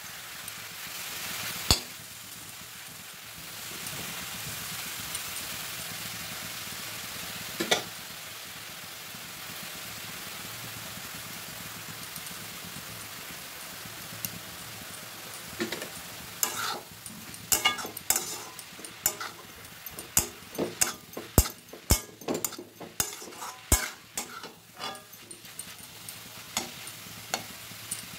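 Leafy greens sizzling as they stir-fry in a metal wok, with a flat spatula scraping and knocking against the pan. The spatula strokes are few at first and come quick and many from a little past halfway on.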